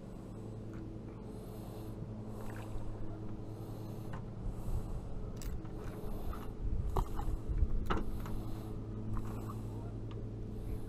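A hooked blue catfish splashing at the surface alongside a boat, in short splashy bursts about once a second, with a few sharp knocks against the hull about two-thirds of the way through. A steady low hum runs underneath.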